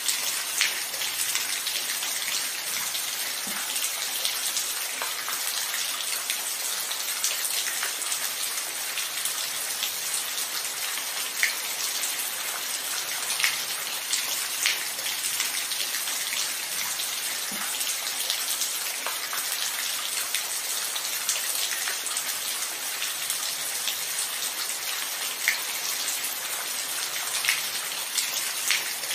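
Steady rainfall: an even hiss of rain with individual drops ticking sharply here and there.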